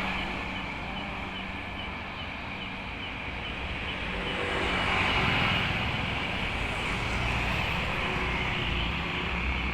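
Road traffic passing steadily, with a vehicle going by louder about five seconds in.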